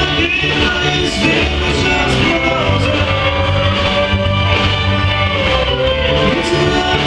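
Live rock band playing, with a steady beat and a held, slowly gliding melody line over the bass.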